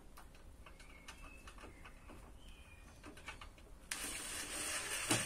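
Faint handling clicks and a few short, faint high chirps, then about four seconds in a cordless drill/driver starts running with a steady whir as it drives a screw.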